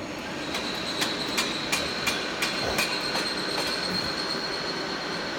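CNC lathe machinery running: a steady high-pitched whine that comes in about half a second in, over a hiss, with scattered sharp clicks.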